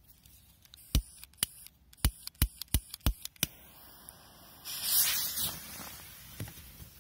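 Several sharp clicks, then about a second of loud hissing that tails off: the fuse of a Korsar 8 firecracker being lit and sputtering before the bang.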